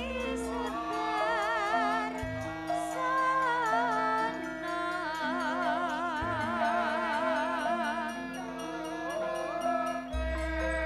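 Javanese gamelan music: a female sinden singing with vibrato over a steady, stepwise metallophone melody, with deep gong strokes ringing out about every four seconds.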